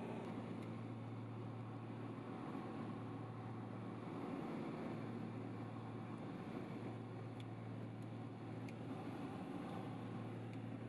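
Light aircraft's engine and propeller droning steadily at cruise, heard from inside the cabin: an even, low hum with a constant pitch.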